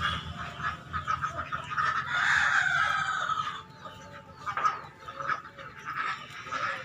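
A rooster crows once: a loud, drawn-out call starting about two seconds in and lasting about a second and a half, with short, quieter sounds before and after it.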